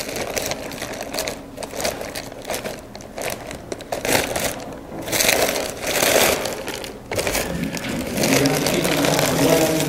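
Plastic bag crinkling and rustling in irregular bursts as it is handled.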